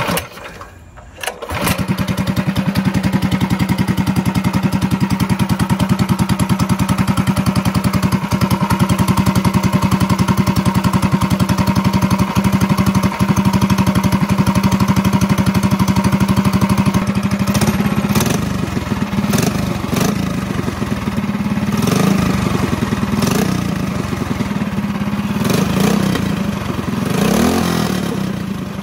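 Predator Ghost 212cc single-cylinder go-kart engine with a custom coffin exhaust starting up about a second and a half in and running at a steady speed, then from about eighteen seconds on rising and falling in pitch as the throttle is worked.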